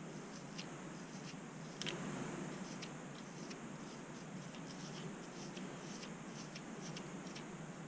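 Scratching and scraping at a scalp to lift seborrheic dermatitis flakes: irregular small ticks and scrapes, with a louder scrape about two seconds in, over a steady low hum.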